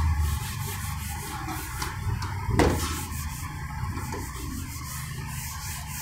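Writing or drawing on a board: faint rubbing strokes over a steady low room hum, with one sharp tap about two and a half seconds in.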